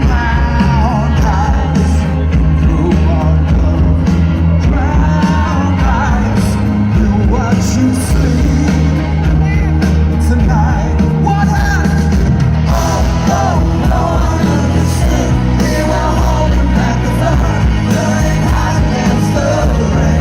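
Live pop-rock concert: a male lead vocal sung over a full band with heavy bass and steady drums, loud throughout.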